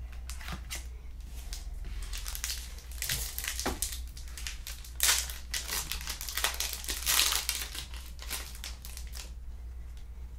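A 2000 Bowman football card pack's wrapper crinkling and being torn open by hand, as a run of irregular rustles and crackles with the loudest about five and seven seconds in.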